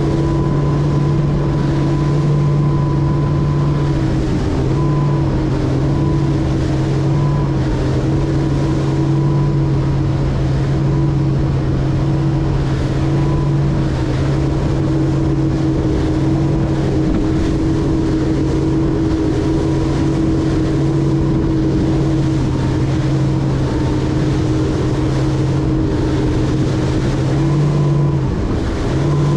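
200 hp Mercury outboard running steadily as it drives a Cobia 237 center console under way, a constant engine hum that shifts slightly in pitch about four seconds in and again near the end, with wind and water noise underneath.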